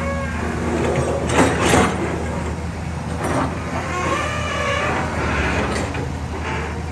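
Long-reach excavator's diesel engine running steadily under load as the arm works, with higher hydraulic whines coming and going. A brief loud rushing burst comes about a second and a half in.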